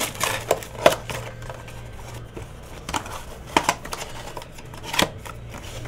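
Hands handling and opening a cardboard trading-card hobby box: scattered scrapes, taps and crinkles of cardboard and wrapping, over a steady low hum.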